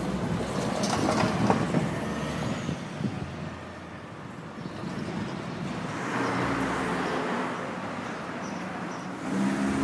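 City street traffic: a steady rush of passing vehicles, with an engine drone swelling about six seconds in and again near the end.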